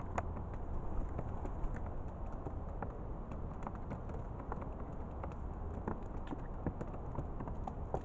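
Rock pigeons pecking seed from a plastic feeding dish: irregular light taps and clicks, several a second, over a low steady rumble.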